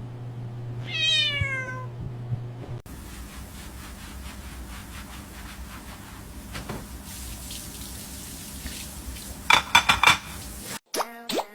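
A cat meows once, a call falling in pitch, about a second in. It is followed by a steady hiss of running water and, near the end, a quick run of short high-pitched cries.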